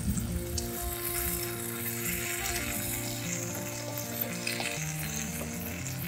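Bacon-wrapped camembert sizzling and frying in a small skillet, with tongs and a knife working it in the pan. Soft background music plays under it.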